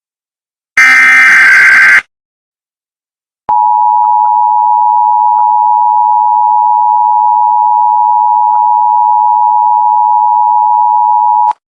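Emergency Alert System broadcast tones. The last burst of the SAME digital data header, a harsh electronic screech about a second long, is followed after a short gap by the EAS attention signal: a steady two-tone beep held for about eight seconds that cuts off sharply.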